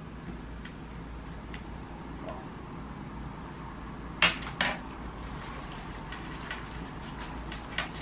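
Plastic toy pieces knocked and set down on a tabletop: two sharp knocks about half a second apart in the middle, a lighter one near the end, and a few faint ticks, over a low steady hum.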